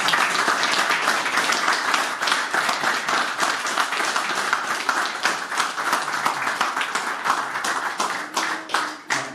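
Audience applauding, a crowd of people clapping their hands, thinning out near the end.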